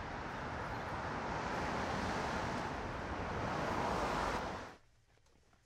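Outdoor city street ambience: a steady rush of traffic noise that builds slightly, then cuts off abruptly near the end.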